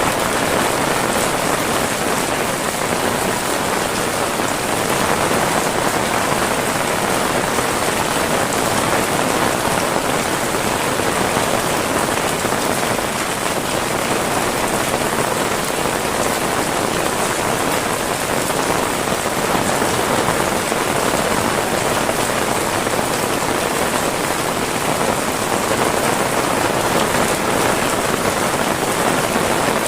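Heavy rain falling steadily on surfaces, a dense continuous patter.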